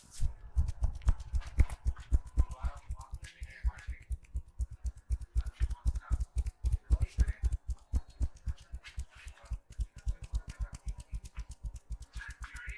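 Percussive massage strokes: a barber's hands striking a person's body in a fast, steady rhythm of dull thumps, about six a second, some louder than others.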